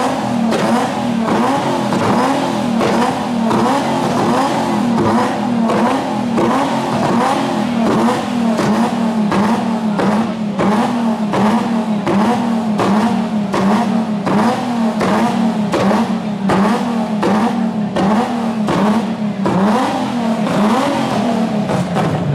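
Loud car engine revved hard over and over, its pitch rising and falling about once a second, with sharp cracks all through.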